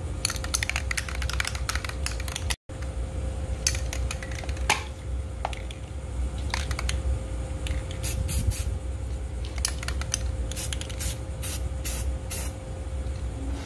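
Aerosol can of Rust-Oleum High Performance Enamel: the mixing ball rattles as the can is shaken, then short hissing bursts of spray paint go on as a top coat over a steady low hum.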